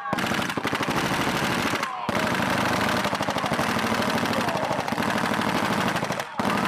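Long bursts of rapid automatic machine-gun fire, broken by short pauses about two seconds in and again near the end.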